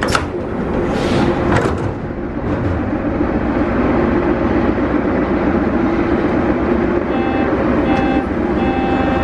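Sliding doors of a Soviet-built 81-717.3 metro car banging open at the start. The stopped train then hums steadily while standing with its doors open, with a few short electronic tones near the end.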